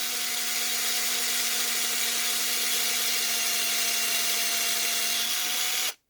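Small electric drill running at a steady speed, drilling out the rivet that holds a diecast car's base. It runs as an even whine and stops abruptly near the end.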